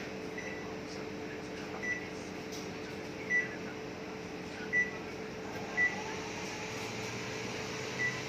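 Microwave oven keypad beeping as its buttons are pressed one at a time: six short high beeps, one every one to two seconds, each a sign that the key registered. A steady hum runs underneath.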